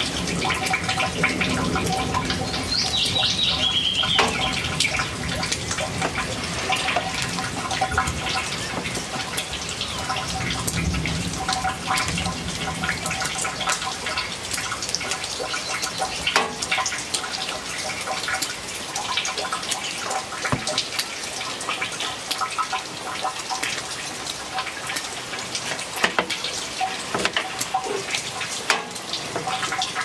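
Steady rain falling, full of close, rapid drips and patters of drops striking surfaces. A bird gives a short call about three seconds in.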